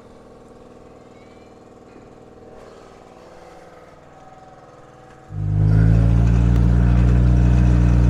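Farm machine's engine running steadily at low revs, then throttled up sharply about five seconds in and held at high revs, much louder.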